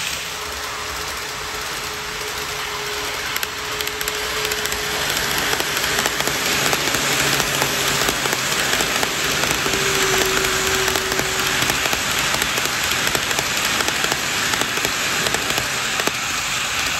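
KATO E235 series 1000 N-gauge model train running past: a steady fine rattle of small wheels over the rails with many tiny clicks. A faint motor whine sits under it, and the rattle grows louder a few seconds in as the train comes close.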